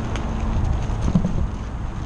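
Car on the move, heard from inside the cabin: a steady low road and engine rumble with a few scattered light clicks.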